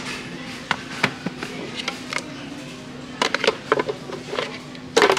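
Clacks and knocks of a plastic storage box and its cork lid being handled, scattered through the stretch and loudest near the end. Music plays quietly underneath.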